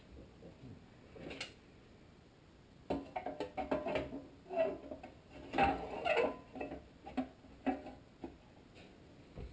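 A few light clicks of a screwdriver at the carburetor screws of a Tecumseh HSK70 small engine. From about three seconds in comes a run of metal clunks and rattles, loudest in the middle, as a sheet-metal heat box is fitted over the carburetor.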